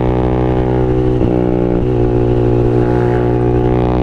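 Motorcycle engine running steadily at low speed, with two brief dips in pitch, one a little after a second in and one near two seconds.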